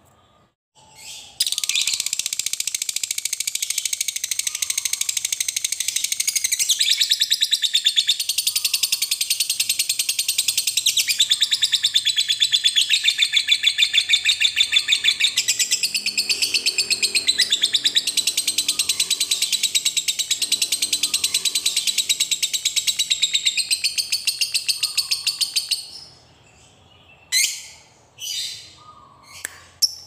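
A lovebird's long 'ngekek': one unbroken, very fast, high-pitched chattering trill lasting about 24 seconds, starting about a second and a half in. It stops abruptly and is followed by a few short separate chirps near the end.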